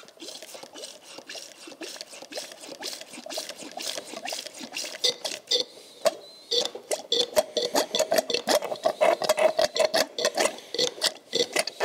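Brake fluid and air squirting and gurgling through a clear bleed tube into a plastic cup as a Girling brake master cylinder is pumped by hand on the bench, with a rapid run of small clicks and pops that grows denser and louder about halfway through. The freed cylinder is pumping fluid again.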